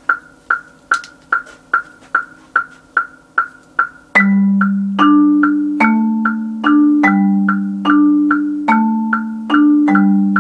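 A metronome clicks steadily about two and a half times a second. About four seconds in, a marimba played with four mallets comes in with low chords in time with it, a new chord about every two clicks.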